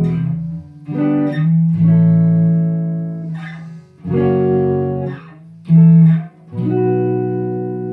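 Fender-copy electric guitar on its neck pickup, strumming a series of chords, about five strums, the last one near the end left to ring and slowly fade.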